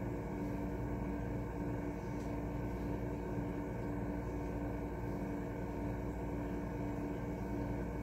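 A battery-fed electrical device, wired to 12 or 24 volts, hums steadily with a constant mid-pitched tone over a low rumble and a fan-like hiss. The sound is even and unchanging.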